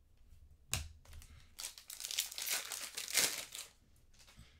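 A sharp plastic click, then a trading-card pack wrapper crinkling and tearing as it is opened.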